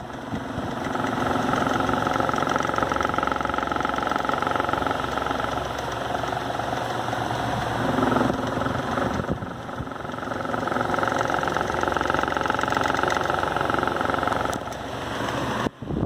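Arno Versátil electric fan running and vibrating hard, with a tractor-like rattling noise that swells and eases twice. The shaking comes from out-of-balance blades and makes the fan judder and walk across its seat.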